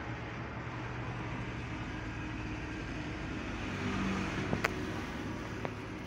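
Steady low hum and rumble of background noise that swells about four seconds in, with a few sharp clicks near the end.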